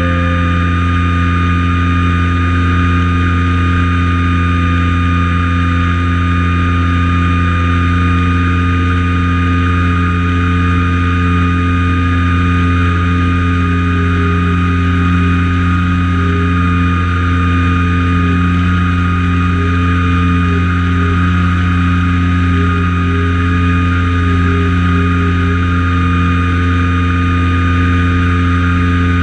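Light aircraft's piston engine and propeller droning steadily in flight, with a slight waver in one of its tones.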